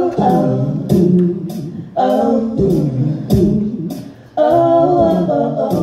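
A woman singing a cappella, her voice layered through a Boss RC-30 loop station into repeating sung phrases with sharp percussive accents.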